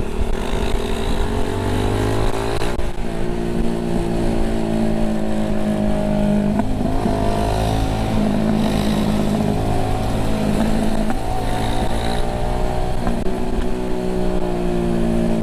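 Small single-cylinder four-stroke engine of a Yamaha Vega Force Fi 115 underbone motorcycle heard from on board while riding, its pitch rising and falling several times as the throttle is opened and eased off. Wind rumbles on the microphone underneath.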